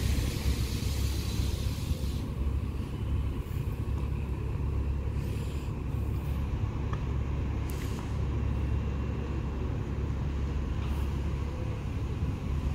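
Street traffic and idling transit buses: a steady low rumble, with a few brief hisses about halfway through and near the end.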